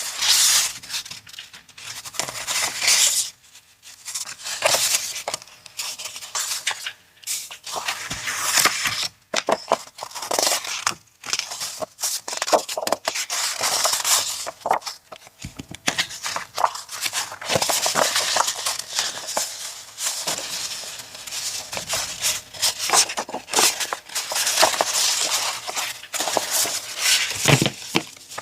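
Paper and packaging being handled up close, rustling and crackling in irregular bursts with short pauses.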